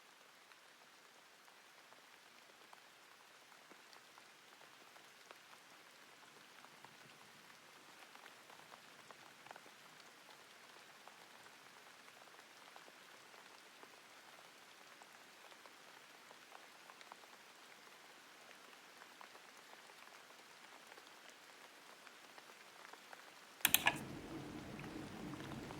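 Faint, soft crackling and scratching of an ASMR ear-picking tool working on a microphone's ear, with scattered small ticks over a low hiss. Near the end a sudden loud click, and a louder, steadier rubbing sound follows.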